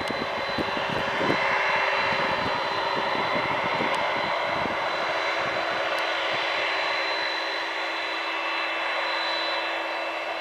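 Jet airliner's turbofan engines passing: a broad rush with a steady high whine, loudest about two seconds in and then slowly fading. Wind rumbles on the microphone during the first half.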